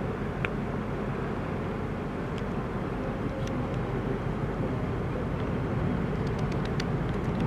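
Steady low rumble and hum of large ship engines across the water, with a few faint clicks near the end.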